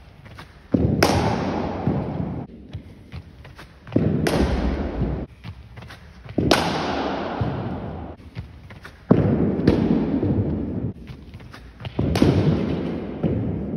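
Cricket ball impacts in an indoor net, mostly bat striking ball, five sharp knocks a couple of seconds apart. Each knock rings on in the hall's long echo.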